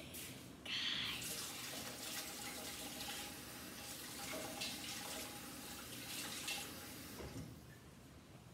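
Water running from a sink faucet as hands are rinsed under it, a steady splashing rush that comes on about a second in and shuts off near the end.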